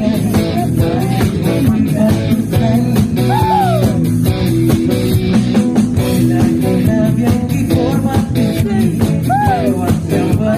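Live rock band playing: a male singer sings into a handheld microphone over electric guitars, electric bass and a drum kit keeping a steady beat.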